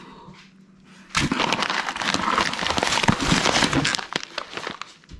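Crinkling and rustling of packaging, tissue paper and a coffee bag being handled, starting about a second in and lasting about three seconds.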